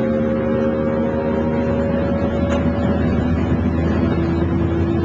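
Motorboat engine running steadily under way, its note shifting slightly lower about three seconds in.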